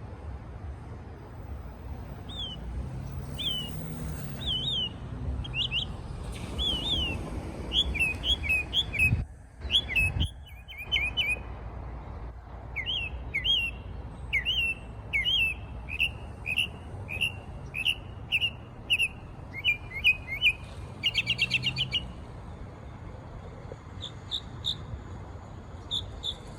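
A songbird singing a long series of short, sharp chirps, about two a second, with a fast trill about three-quarters of the way through.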